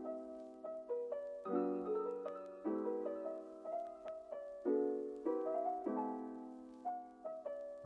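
Background piano music: soft chords and notes struck about once a second, each ringing and fading.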